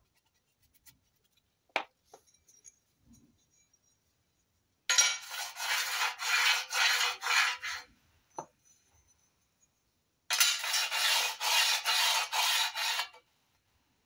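A flat steel plate rubbed back and forth over the black-coated steel ways of a homemade lathe bed, marking the high spots while the bed is levelled. It makes a rasping scrape of about three strokes a second, in two bouts of a few seconds each. There is a sharp metal click about two seconds in.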